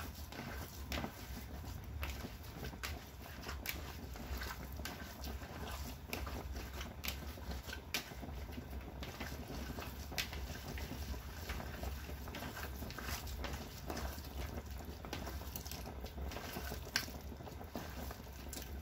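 Hands patting and shaping minced-meat cutlets in a bowl, coating them in breadcrumbs: soft irregular pats and small crackles over a low steady hum.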